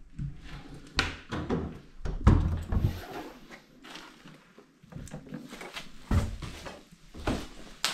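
A heavy door with an overhead closer being pushed open, with a loud low thud about two seconds in, then scattered knocks and footsteps across a debris-strewn floor.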